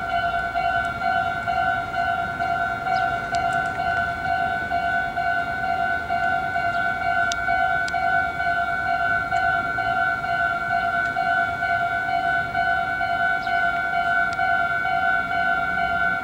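Japanese railway level crossing's electronic warning bell ringing in a steady, evenly repeating rhythm at a constant loudness, the signal that a train is approaching and the crossing is closed.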